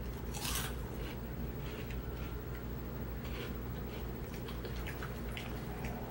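Crunchy Flamin' Hot Limón Cheetos being chewed: one sharp crunch about half a second in, then softer, irregular crunches as the chewing goes on.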